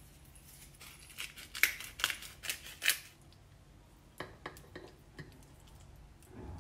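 A metal fork clinking and scraping against a ceramic plate as it twirls spaghetti. There is a quick run of sharp clicks between about one and three seconds in, a few softer ones a little later, and a dull thump near the end.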